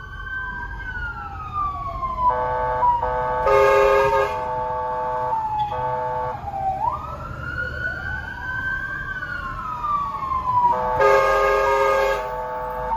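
Fire truck siren wailing in slow rising and falling sweeps, broken by groups of short, steady horn blasts. The loudest blasts come about four seconds in and again near the end: an emergency response run.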